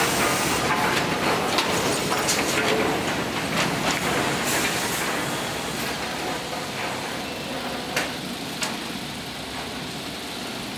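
Woodworking mill machinery and lumber conveyors running steadily, with a handful of sharp knocks. The noise is a little lower in the second half.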